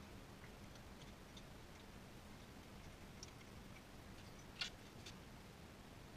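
Faint, irregular light clicks from hand work at a car's underbody, with one louder click about four and a half seconds in; otherwise near silence.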